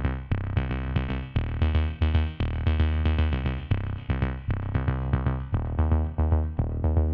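Electronic music: a steady run of short, quickly fading synthesizer notes over a bass line, a few notes a second.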